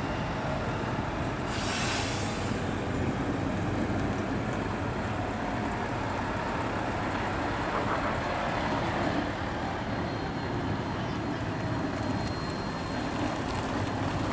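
Heavy truck engines running, with a short air-brake hiss about two seconds in.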